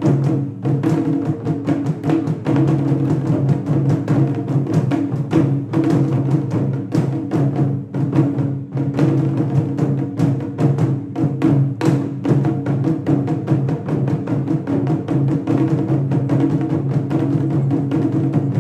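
Taiko drum ensemble playing a fast, dense rhythm of strikes without a break.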